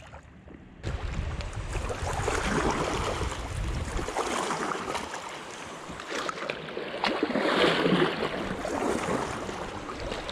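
Fast river current rushing around a kayak being paddled through a riffle, with wind on the microphone. It starts abruptly about a second in and carries a few light knocks.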